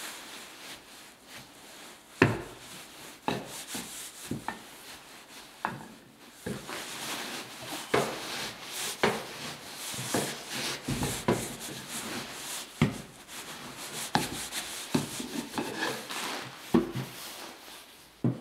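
Sawdust being tamped down into a steel sawdust stove drum with a wooden tamper: irregular knocks and thuds, the loudest about two seconds in, with wood scraping and rubbing through the sawdust and against the metal.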